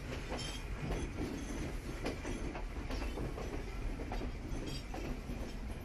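Passenger train running along the track, heard from an open carriage window: a steady rumble with the wheels clattering over the rail joints in irregular knocks.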